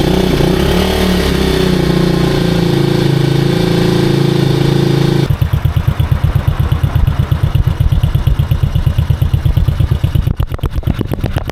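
Alpha moped's single-cylinder engine running just after starting: a steady fast idle with a small blip of the throttle about a second in. About five seconds in it changes abruptly to a slower, loping idle with distinct even pulses.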